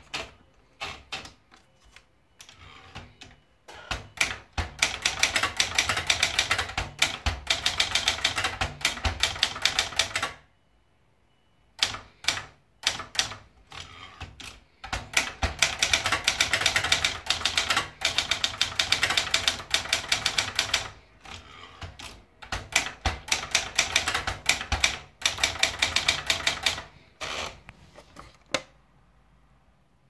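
Brother Deluxe 1510 portable manual typewriter: a few scattered clicks as the paper is wound in with the platen knob, then rapid typing in three long runs of keystrokes with short pauses between, stopping near the end.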